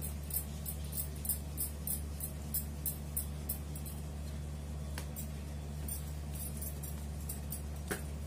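Bangles on the wrists clinking in light jingles, about three a second for the first few seconds and then only now and then, as hands twist and shape a ball of dough. A steady low hum runs underneath.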